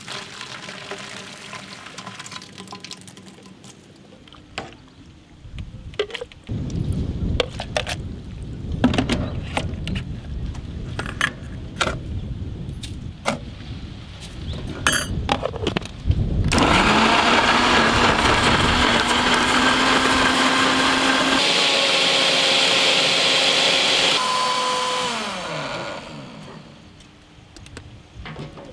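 Milkshake poured from a blender jar, then knocks and clatter as the jar is handled and set on its base, then an electric mixer grinder running loud and steady for about nine seconds, its sound changing partway through, before it is switched off and spins down with a falling pitch.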